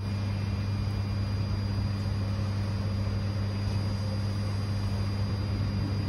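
Heavy rain falling, with a steady low mechanical hum under it and a faint high whine.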